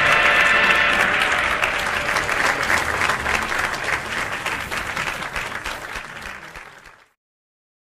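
A crowd applauding, the clapping thinning and fading until it stops abruptly about seven seconds in. The last held notes of music die away in the first second.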